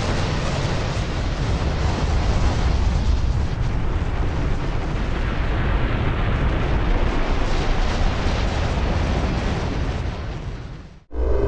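A designed cinematic sound effect: a loud, dense, steady rumble of noise, heaviest in the low end. It cuts off abruptly near the end, and a new synthesized tone begins.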